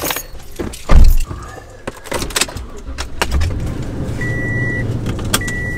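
A pickup truck door slams about a second in, followed by small rattles. The Toyota Tundra's V8 then starts and settles into a steady idle, and the truck's warning chime beeps twice near the end.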